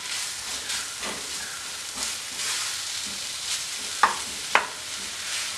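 Wooden spatula stirring and scraping a dry taro and crushed-coconut mixture in a nonstick frying pan over the flame, with a light steady sizzle underneath. Two sharp knocks about four seconds in.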